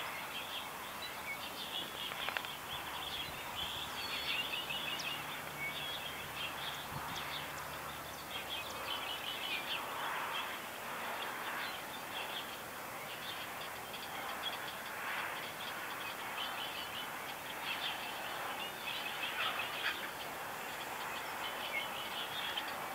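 Many small birds chirping and trilling at once in a dawn chorus, short rapid phrases overlapping throughout, over a steady faint outdoor hiss.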